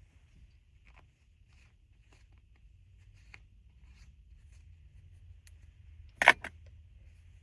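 Several seconds of faint rustling and small clicks, then a single short stifled sneeze about six seconds in, a sharp burst of breath with a smaller catch right after it.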